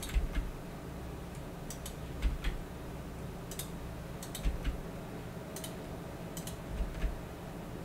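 Computer keyboard key presses and mouse clicks: scattered sharp clicks, often in close pairs, about one every second, some with a dull knock.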